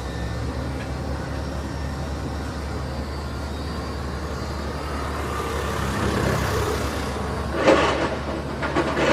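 Steady low engine rumble of a large vehicle, with two short louder noisy bursts near the end.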